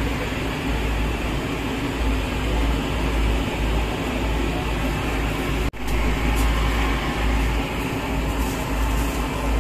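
Steady machine-like rumble and hiss, heaviest in the low end, with a split-second dropout a little past the middle and a few faint ticks after it.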